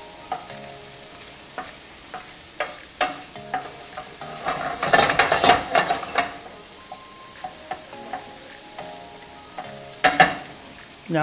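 Food sautéing in a frying pan, sizzling softly while a utensil stirs it and knocks against the pan. The clatter comes in scattered taps, with a busy run of stirring about five seconds in and a few sharp knocks near ten seconds.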